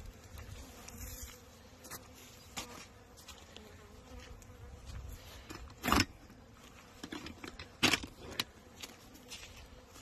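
Honeybees buzzing as they fly around the hives, a faint steady hum, with two sharp knocks about six seconds in and again two seconds later.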